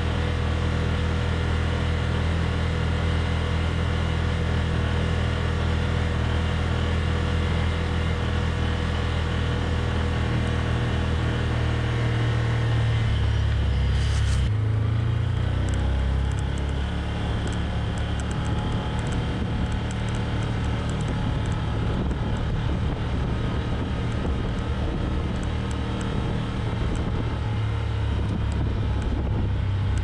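Can-Am Commander side-by-side's V-twin engine running steadily while driving, heard from on board with wind and tyre noise. The engine note changes about halfway through.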